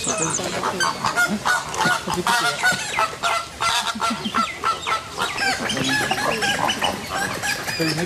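A flock of geese honking, many short calls overlapping in quick succession.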